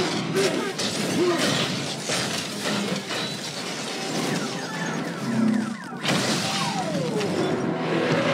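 Movie sound effects of a giant robot and monster fight: dense crashing, smashing and shattering debris with metallic clanks and a few falling screeches, over a music score. The din drops briefly about six seconds in, then comes back.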